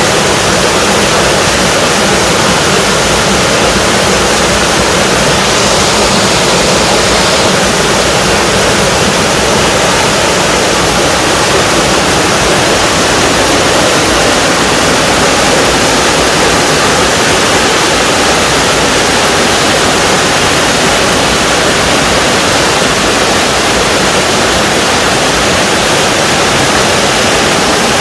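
Small waterfall in a mountain valley stream: water pouring and splashing in a loud, steady rush.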